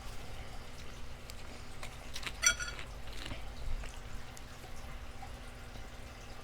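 Quiet eating sounds: soft chewing and small wet mouth clicks while eating pasta. About two and a half seconds in there is one brief high-pitched sound.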